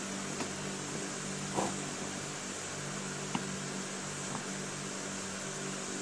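A steady electrical hum with hiss, like a fan or appliance running in a small room, with a few faint short clicks scattered through it, about four in all.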